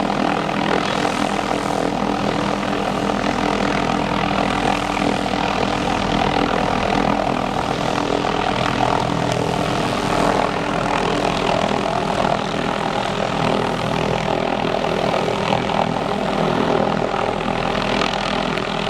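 Hughes 500D light helicopter running steadily at close range, with its turbine engine and rotor noise holding an even level throughout.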